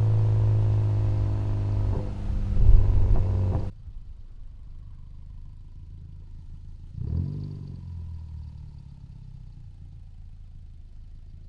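Mitsubishi Lancer Evolution X's turbocharged 2.0-litre four-cylinder engine on a light-throttle cruise, with a new AGT 57 mm turbo and intake, picked up by mics on the intake and exhaust. It drones steadily, with a louder surge and a few knocks between two and three and a half seconds in. It then drops suddenly to a quiet low-speed run, with a short rev about seven seconds in followed by a faint whine that falls slowly in pitch.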